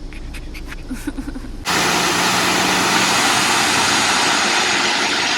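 A low rumble with a few light clicks, then, about a second and a half in, a sudden switch to a loud, steady rushing of falling water from Khorfakkan's man-made waterfall.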